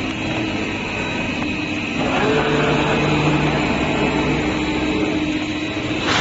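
CNC cutting machine running: a steady mechanical hum with high whining tones, growing louder and rougher about two seconds in as a lower hum joins, with a sharp knock right at the end.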